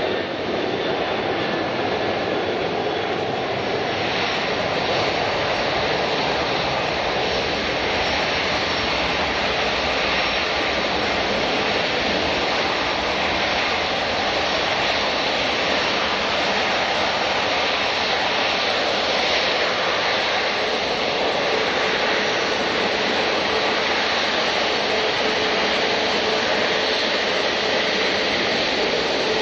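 Jet airliner engines running loud and steady: an even rushing noise with faint whining tones that holds for the whole stretch.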